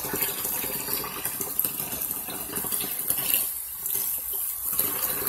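Bathroom sink tap running hot, with water splashing as a clay face mask is rinsed off by hand. The flow thins briefly a little past the middle.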